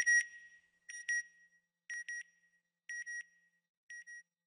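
Electronic double beeps, a pair of short high tones about once a second, five pairs that grow fainter and stop about four seconds in.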